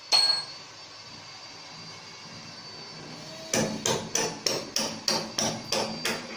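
A single sharp knock, then a hammer striking hard in a quick, even series of about three blows a second.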